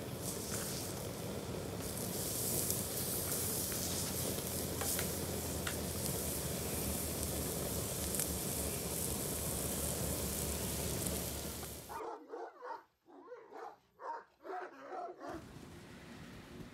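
Chunks of raw meat sizzling on a hot metal plate over glowing embers, with scattered crackles and pops. About twelve seconds in the sizzling cuts off and a dog whines in short calls for a few seconds.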